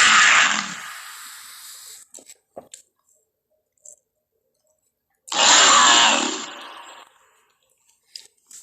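Pachycephalosaurus creature sound effect: a loud, harsh, hissing call that fades out over the first two seconds, then a second such call about five seconds in that fades away by about seven seconds.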